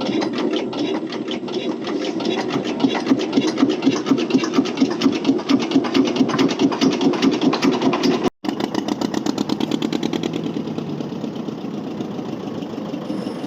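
Fishing boat's engine running steadily with a rapid, even pulsing beat, cutting out for an instant about eight seconds in.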